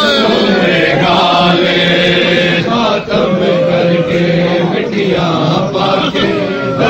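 Men's voices chanting a Punjabi noha, a Shia lament for mourning processions. The chant is a melodic line of long held notes that waver and bend in pitch.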